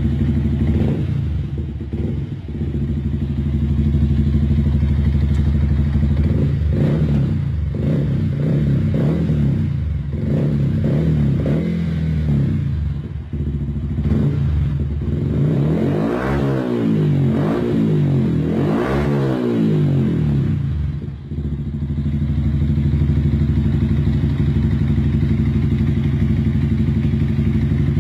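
Yamaha R15's 155 cc single-cylinder engine idling through an aftermarket R9 exhaust, blipped with a run of short throttle jabs and then revved twice higher, rising and falling, before dropping back to a steady idle.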